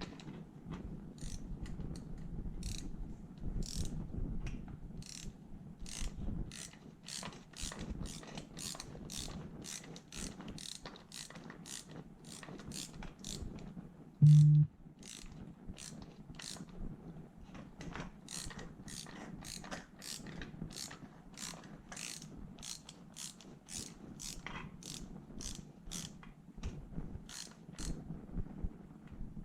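Hand ratchet wrench clicking in steady strokes, about two clicks a second. About halfway through there is a brief, loud, low buzz lasting about half a second.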